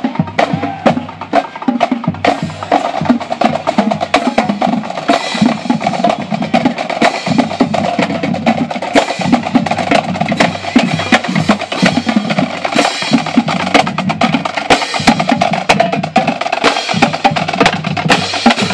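Marching band playing as it passes: a steady, loud drum beat of snare, bass drums and cymbals under saxophones and brass playing a tune.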